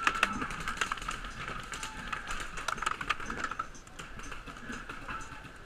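Paintball gunfire: rapid, irregular sharp pops and smacks of markers firing and balls striking around the bunker, thinning out after about three and a half seconds.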